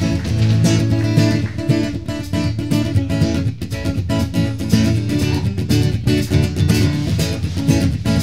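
Live band playing an instrumental passage of an upbeat worship song, led by strummed guitar, with no singing.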